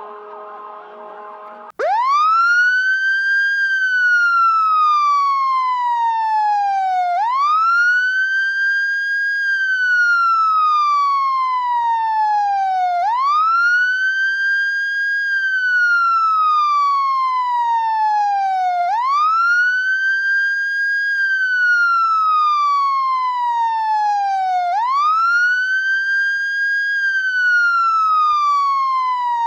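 Electronic police siren in a slow wail. Each cycle sweeps quickly up, holds briefly, then glides slowly down, repeating about every six seconds. It starts abruptly about two seconds in, replacing a quieter steady tone.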